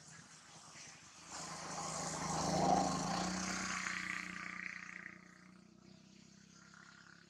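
A passing motor vehicle: engine noise swells over a second or so, peaks near the middle and fades away.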